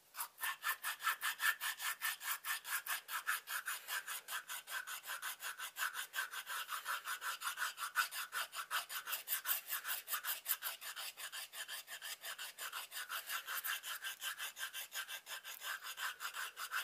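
Checkering file rasped quickly back and forth over a hard knife-handle scale, in rapid even strokes of about five a second, scratching its surface up to a very coarse finish so that epoxy will adhere to it.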